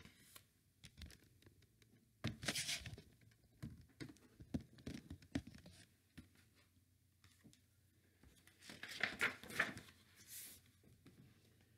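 Faint rustling and crackling of a picture book's paper pages being handled, in a few short bouts, with a page being turned near the end.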